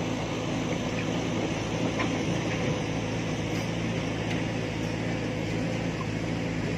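Heavy diesel engine running steadily at an even speed, a constant low drone.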